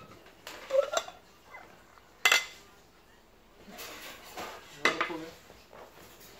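Plates and a glass serving bowl clinking and clattering as they are handled and set down on the table. The loudest is one sharp clink a little past two seconds in, with a cluster of smaller knocks about five seconds in.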